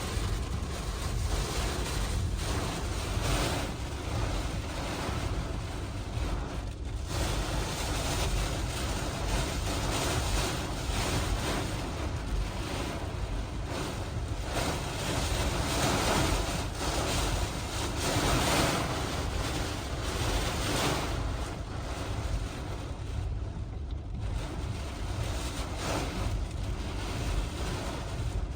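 Hurricane eyewall wind gusting and buffeting the microphone with a heavy low rumble and rising and falling surges, mixed with wind-driven rain.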